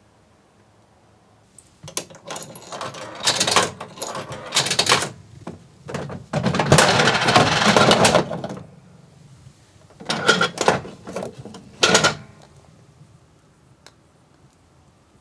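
Capsule-toy (gacha) vending machine being worked: the crank handle turned with clicking and rattling, and a capsule clattering down into the chute, with a few sharp clacks near the end.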